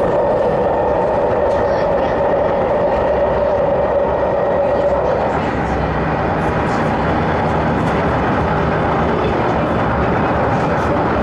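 Inside the carriage of an MTR MLR (Metro-Cammell) electric multiple unit running at speed: a steady, loud rumble of wheels on rail and running noise. A steady droning tone sits over it and dies away about five seconds in.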